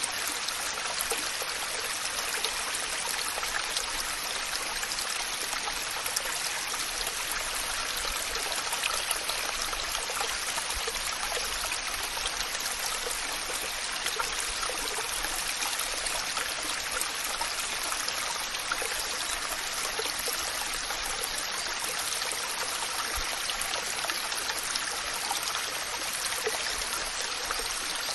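Waterfall: a steady hiss of rushing, splashing water, with many small droplet splashes running through it.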